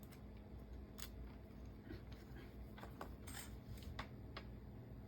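Faint, scattered light clicks and a brief scrape of small parts being handled inside an open laptop, over a faint steady hum.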